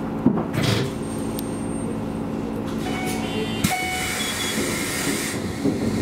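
KiHa 220 diesel railcar standing at a platform with its engine idling. A short hiss comes about half a second in, and a longer hiss starts a little after halfway, where the engine hum changes.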